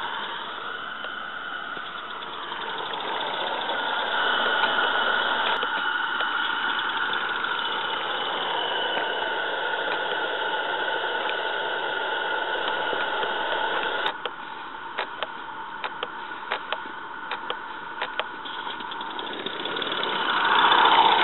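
Live-steam 16mm-scale Roundhouse Fowler locomotive running steadily as it pushes a snowplough through deep snow. About two-thirds of the way in the sound drops quieter and a run of irregular sharp clicks follows.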